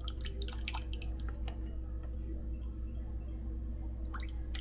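Thick pasta sauce dripping and squishing out of a pouch into a glass bowl, with short clicks and splats in the first second or so. About four seconds in come a few more sharp clicks as chopsticks stir the sauce in the glass bowl. A steady low hum runs underneath.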